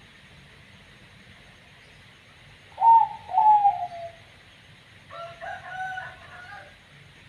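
Zebra dove (perkutut) cooing: two loud, falling notes about three seconds in, then a quieter, broken run of notes about two seconds later.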